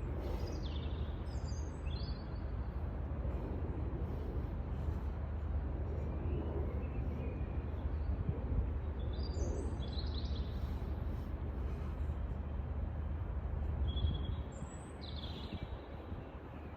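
Steady low background rumble with short bird chirps in three brief clusters: near the start, about halfway through and near the end. The rumble drops off a couple of seconds before the end.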